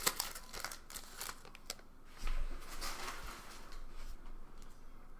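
Foil wrapper of a Donruss baseball card pack crinkling and tearing open: sharp crackles in the first two seconds, then a dull handling bump with rustling about two seconds in, fading to a softer rustle.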